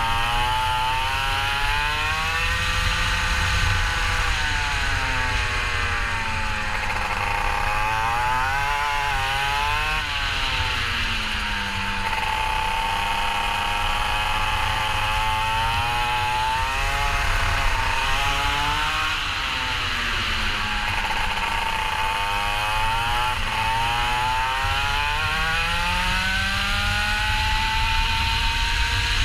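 Kart engine running through a lap, its pitch climbing slowly on each acceleration and dropping quickly when the throttle comes off, about six times. A steady low rumble and hiss run underneath.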